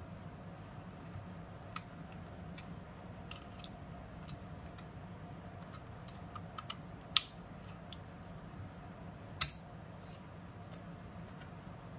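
Scattered small clicks and taps from handling a mini PC's internal parts, with two sharper clicks in the second half.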